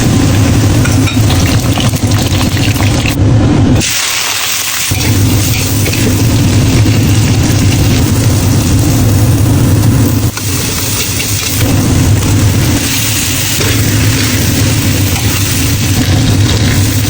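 Kitchen cooking noise: a loud, steady low hum with a frying hiss over it, breaking off briefly about four seconds in and dipping again around ten seconds.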